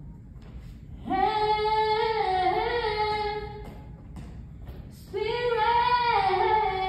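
A woman singing unaccompanied as voice practice: two long held phrases, the first starting about a second in and the second about five seconds in, each wavering a little in pitch.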